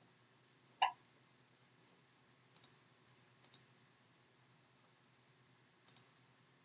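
Computer mouse buttons clicking: a single click about a second in, then three quick double clicks spread over the next five seconds, with a faint click between them.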